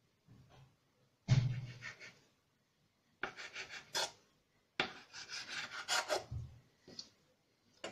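A knife cutting through yeast dough and scraping along a marble countertop: three rasping strokes, the first starting with a knock on the stone about a second in, the last and longest lasting over a second.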